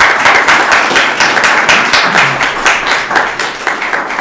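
Audience applauding, with many individual hand claps, easing off slightly near the end.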